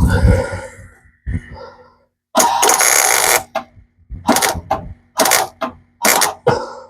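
MIG welder stitch-welding thin sheet metal on a car's rocker panel: one crackling weld of about a second, then several short crackling tacks about a second apart. Wind rumbles on the microphone in the first second.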